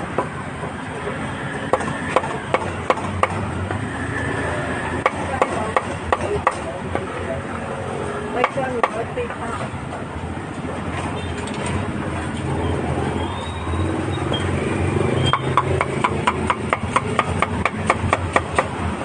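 Cleaver chopping grilled meat on a wooden chopping block: sharp, irregular knocks, then a quick steady run of chops, about three a second, in the last few seconds.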